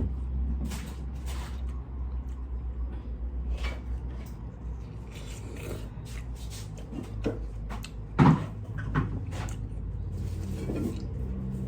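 Scattered small knocks and clicks, like objects being handled and set down, with one louder knock about eight seconds in, over a steady low hum.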